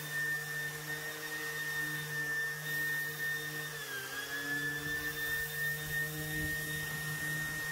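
Electric orbital sander with a dust-extraction hose sanding the painted underwater hull and keel of a sailing yacht. It gives a steady high whine over a lower hum, and the pitch dips briefly about halfway through.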